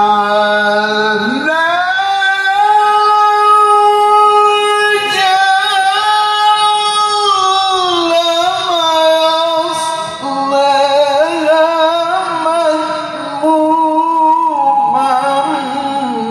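A male qari reciting the Qur'an in the melodic tilawah style, drawing out long, ornamented vowel phrases. The voice climbs about a second and a half in, holds high and steady for several seconds with small trills, then steps down lower around ten seconds in.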